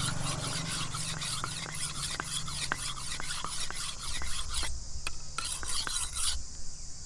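A knife scraping and cutting palmyra palm fruit: rasping strokes with a sharp tick about three times a second. The strokes break off briefly about five seconds in and stop near the end.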